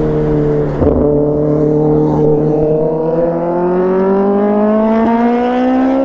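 A motor vehicle engine running at a steady pitch, then slowly rising in pitch over the last few seconds as it speeds up.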